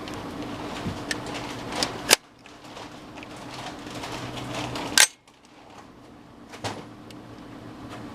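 Two sharp shots from a CMMG Banshee about three seconds apart, with a few fainter clicks between and after.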